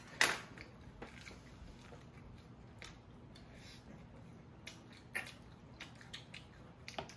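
Close-up eating sounds: crispy fried chicken being bitten and chewed. A sharp crunch comes about a quarter second in and another about five seconds in, with small clicks in between.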